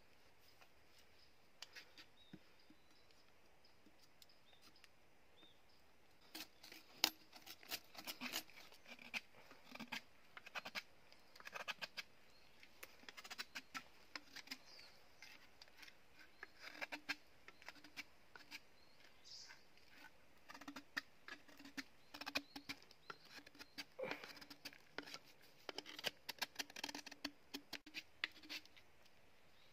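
Small knife scraping and cutting a green bamboo tube: a run of short, irregular scrapes and clicks starting about six seconds in.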